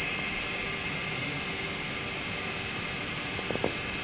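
Steady outdoor background drone with a brighter hiss running through it, and a quick cluster of faint ticks about three and a half seconds in.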